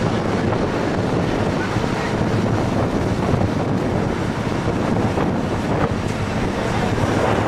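Wind buffeting the microphone: a steady, rumbling rush of noise.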